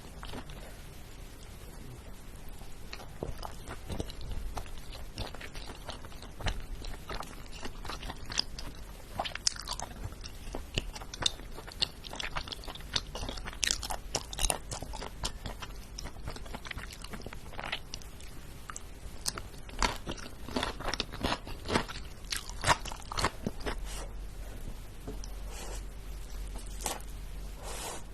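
Close-miked eating: crunchy food bitten and chewed, with irregular crisp crunches that come thicker and louder in the middle and latter part.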